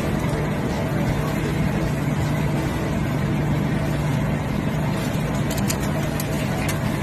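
A small engine running steadily, an even low hum, with a few faint clicks about two-thirds of the way through.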